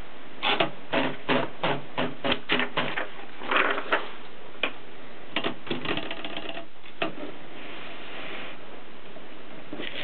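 Continental W50 typewriter mechanism clicking: a run of sharp, evenly spaced clicks about three a second for the first few seconds, then scattered clicks and a short rustle.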